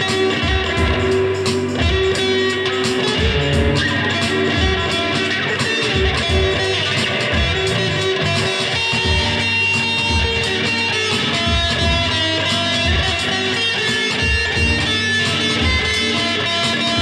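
Electric guitar played through an amplifier: a continuous instrumental passage of picked notes and strummed chords.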